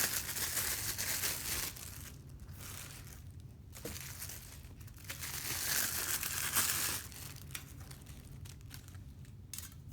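Packaging crinkling in spells as a set of stainless dumpling cutter rings is handled and unwrapped, with a few light clicks near the end.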